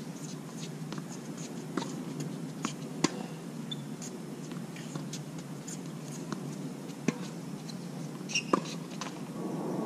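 Tennis balls struck by rackets and bouncing on a hard court during a doubles rally: scattered sharp pops at uneven intervals, the loudest about three seconds in and near the end, over a steady background hiss.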